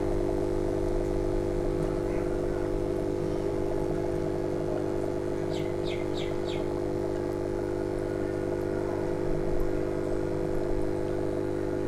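Electric aquarium air pump humming steadily, feeding the airline of a bottle brine shrimp hatchery. About halfway through there are four quick high chirps.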